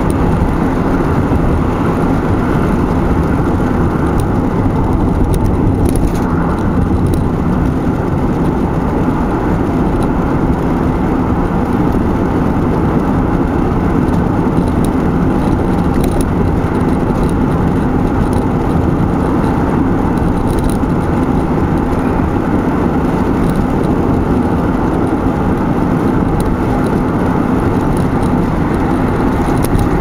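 Steady road noise inside a moving car's cabin: an even low rumble of tyres and engine that does not change.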